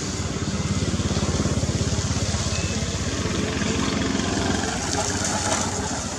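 A small engine running, its rapid low pulse swelling about half a second in and easing off through the second half.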